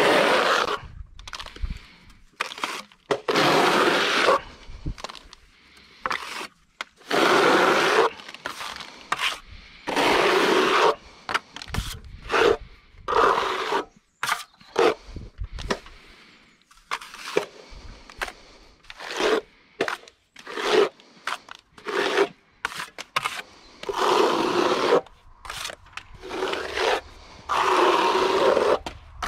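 A steel trowel scraping render in repeated strokes, each about a second long, with short pauses between them.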